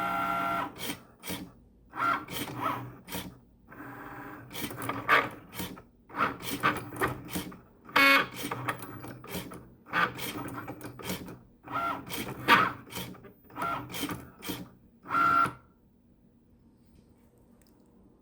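Cricut Maker cutting machine running a cut: short whirring carriage-motor moves broken by many loud clicks, falling quiet about fifteen seconds in. The owner hears the clicking as a fault, with the machine not cutting properly.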